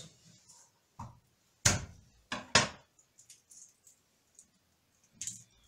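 Kitchen knife cutting garlic cloves into large pieces on a wooden cutting board: four sharp knocks of the blade on the board at uneven intervals, with faint small taps between them.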